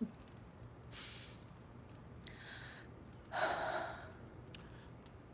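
A person breathing out audibly: three soft sighing breaths, the last one the loudest.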